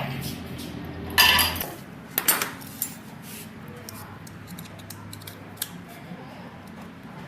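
Metal parts and hand tools clinking and clattering, with a loud clatter about a second in, a few sharper clinks soon after, then only occasional light ticks.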